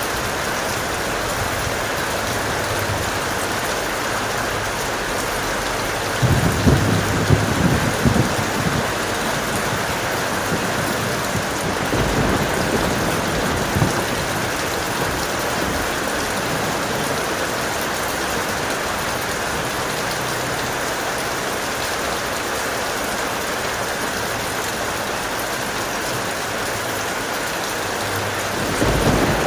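Steady heavy rain, with thunder rumbling about six seconds in, the loudest moment, a weaker rumble a few seconds later, and another roll of thunder starting near the end.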